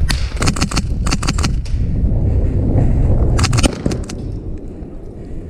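Airsoft rifles firing in short rapid bursts of sharp pops, three bursts of about half a second each, the last a few seconds after the first two. A steady low wind rumble on the microphone runs underneath.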